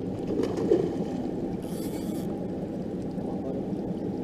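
Yamaha outboard motor idling steadily, a constant low hum, with a brief hiss about two seconds in.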